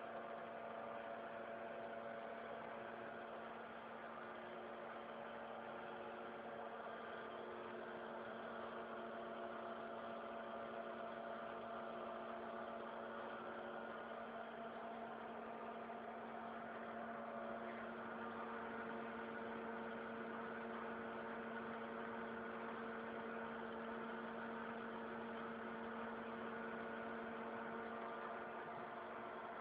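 Industrial three-axis CNC milling machine running: a steady machine hum with several held tones that shift in pitch about halfway through and again a few seconds later.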